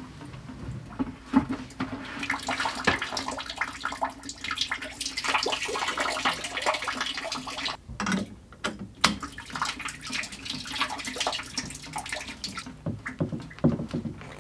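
Water draining from a cut PEX supply line and splashing into a plastic bucket, with many small irregular splashes and a short lull about eight seconds in. It is the leftover water from the house's plumbing, drained out at the lowest point of the system.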